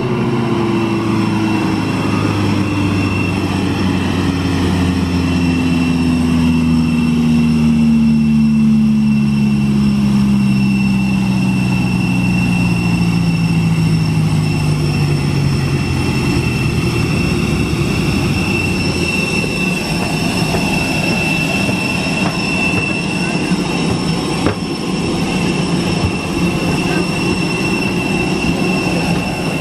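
Machine noise from a parked jet airliner and its ground equipment on the airport apron. A steady high whine runs throughout, and beneath it a lower hum slowly falls in pitch over the first half, as if something is winding down.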